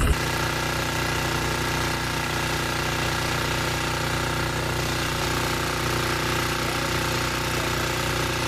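Small engine of a portable pump running steadily at a constant speed, an even hum that holds the same pitch throughout.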